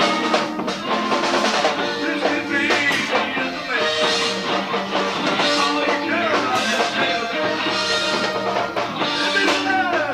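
Live rock band playing a song: electric guitar, bass guitar and drum kit, with steady drum and cymbal strokes.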